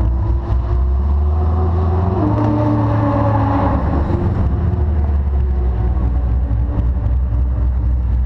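C6 Corvette's V8 engine running at low speed, rolling slowly with a deep steady note that lifts briefly a couple of seconds in before settling again.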